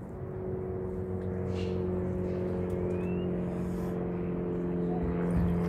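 A steady engine drone, a low hum with a few higher tones held over it, slowly growing louder.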